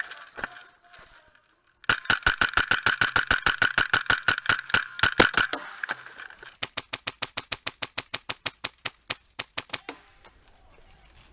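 Airsoft rifle firing on full auto in two long bursts of about ten shots a second, with a steady whine under the first burst.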